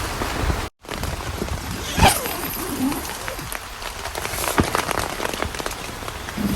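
Steady rain with many scattered drops ticking and pattering. The sound cuts out completely for an instant near the start, and a single louder knock comes about two seconds in.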